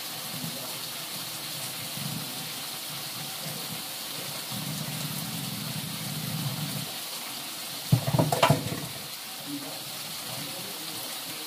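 Food frying in hot oil, a steady sizzle, with a brief clatter about eight seconds in.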